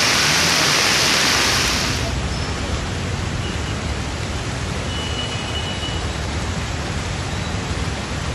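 Heavy rain pouring steadily as a dense hiss. About two seconds in the hiss becomes duller and quieter, with more low rumble.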